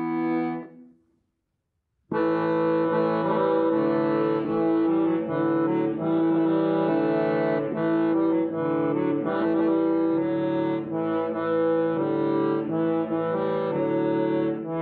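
Syrnai, the Kazakh accordion, playing: a held chord dies away within the first second, a short silence follows, and about two seconds in a new melody starts over sustained reed chords.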